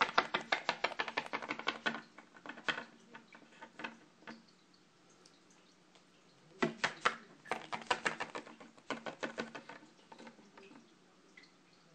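Small plastic toy figures tapped quickly on a tabletop as they are hopped along: a fast run of light clicks, about ten a second, in two spells, the second starting just past the middle.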